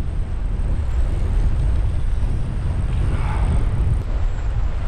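Wind buffeting the microphone: a steady, heavy low rumble.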